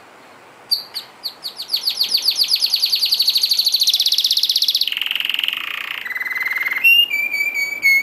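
Domestic canary singing: repeated high chirps that speed up into a fast rolling trill, followed by lower buzzy trills and a few clear whistled notes near the end.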